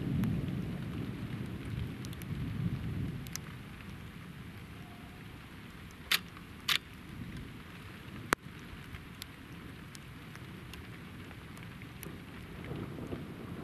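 Thunder rumbling and fading away over the first few seconds, then steady rain, with a few sharp clicks in the middle and a new roll of thunder building near the end.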